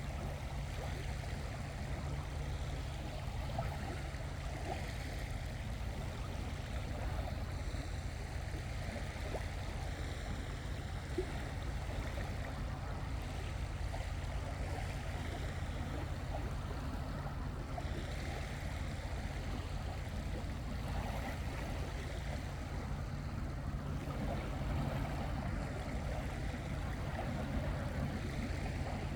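Steady low rumble of the sea at the shore, with a soft hiss of water over it and no breaks or single surges.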